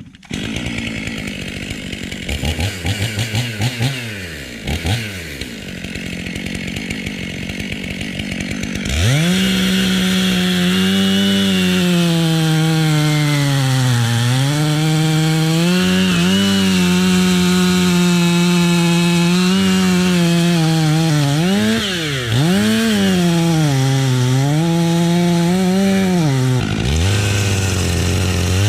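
Two-stroke chainsaw cutting through oak. It revs softly up and down for the first nine seconds or so, then runs at full throttle, its pitch sagging several times as the chain loads in the cut and picking back up.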